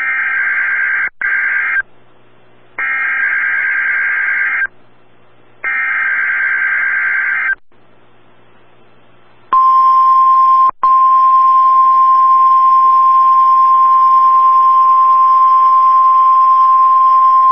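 NOAA Weather Radio Emergency Alert System signal: three short digital SAME header bursts, about a second apart, encoding a tornado watch alert. About halfway through, a steady 1050 Hz warning alarm tone starts and holds, loud, with a brief dropout shortly after it begins. This is the alarm that precedes the spoken watch message.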